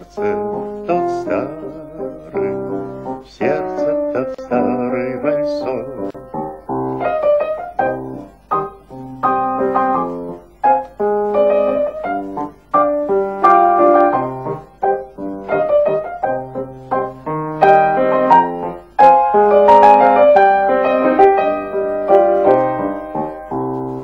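Instrumental break of a slow waltz, led by piano, with no singing.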